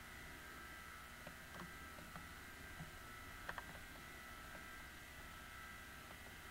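Near silence: the steady faint hum and hiss of the camcorder, with a few faint clicks, the loudest about three and a half seconds in.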